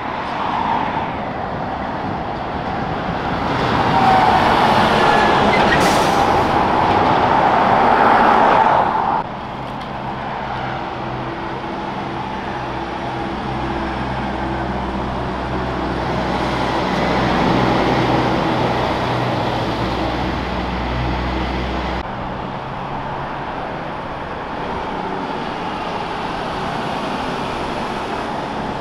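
Heavy trucks in city traffic. A loud truck goes by and cuts off abruptly about nine seconds in. A truck engine then runs with a steady low hum until about 22 seconds in, and lighter traffic noise follows.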